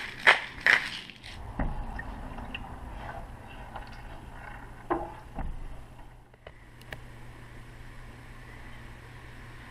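Spice grinder twisted over a saucepan, clicking about three times a second, stopping about a second in. Then a spatula knocks and scrapes in a small pot on the stove over a steady low hum.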